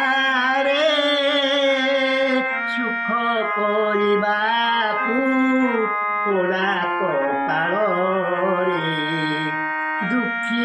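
A man singing an Odia devotional bhajan, drawing out long wavering notes, over a steady sustained keyboard-instrument accompaniment.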